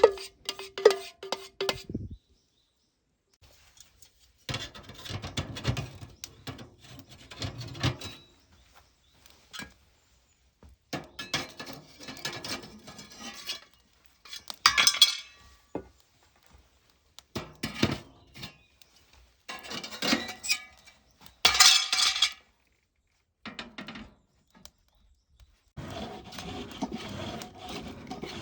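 Steel being worked by hand in short separate bursts. It opens with hammer blows ringing on the iron bar, about three a second, then scraping and clinking of metal on metal, with a steady scraping near the end.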